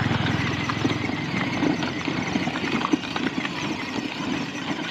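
Crunching and rattling over a gravel dirt road: the plastic wheels of a battery-powered ride-on toy jeep rolling along, mixed with footsteps on the gravel. A low hum fades out about a second in.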